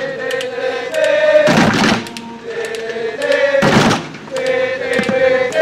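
A group of people singing together in slow, long-held notes that step from pitch to pitch, with a rush of noise coming in about every two seconds.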